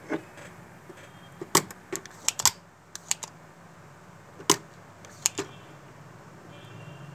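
Irregular sharp clicks and taps, about ten in all, as a soldering iron and tools work at a solder joint on a circuit board during desoldering.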